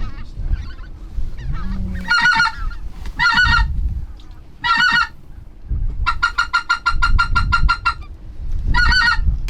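Hand-blown duck call worked hard at ducks flying in: loud, single drawn-out quacks with a fast run of short notes for about two seconds in the middle. Low rumble of wind and movement underneath.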